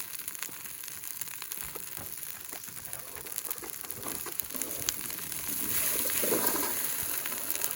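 Toaster oven hissing and crackling after the can of expanding foam burst inside it, with many scattered sharp crackles over a steady hiss that swells about six seconds in.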